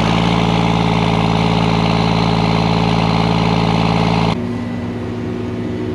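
OMC Shockwave almond tree shaker's engine idling steadily just after starting. About four seconds in, its sound drops suddenly in level and keeps running quieter.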